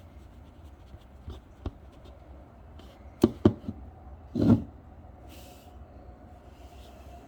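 Parts of a metal Harrelson 5MM mouthpiece being handled: a few light clicks, two sharp clicks about three seconds in, then a short clatter a second later.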